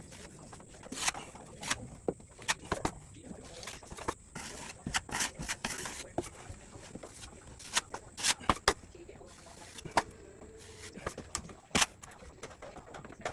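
Irregular scrapes, clicks and knocks of hand tools in drywall work, coming at uneven intervals with no steady rhythm.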